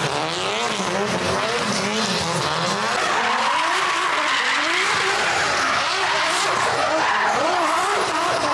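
Drift cars doing donuts: the engine revs rise and fall again and again over the hiss and squeal of spinning rear tyres.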